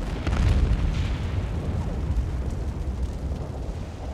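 Rumbling booms of naval gunfire and shell explosions, a few sharp bangs within the first second over a heavy low rumble that slowly dies away.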